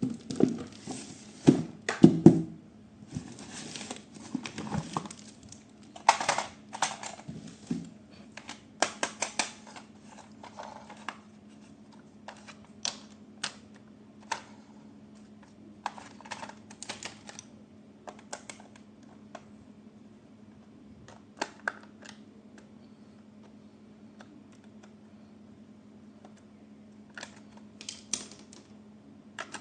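Irregular clicks, taps and short rustles of toy packaging being handled, busier in the first third and sparser after, over a faint steady low hum.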